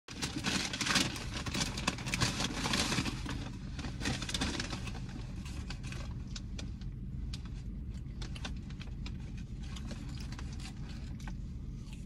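Paper takeout bag and food wrappers rustling and crinkling as they are handled, loudest in the first three seconds, then scattered crinkles. Underneath is a steady low hum inside a car cabin.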